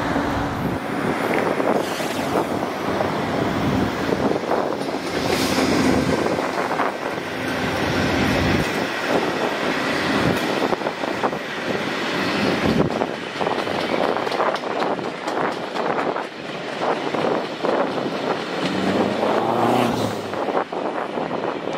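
VIA Rail passenger train passing, its diesel locomotive running and the coaches' wheels rolling and clicking over the rails in a steady rush of rail noise.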